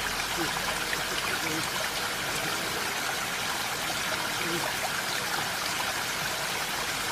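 Steady, unbroken rushing hiss of water.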